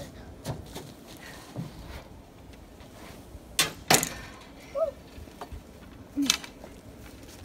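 Sharp knocks and clacks from an antenna mast pole being handled and pushed up into pine branches: a few light taps early on, a loud pair of knocks about three and a half seconds in, and one more about six seconds in.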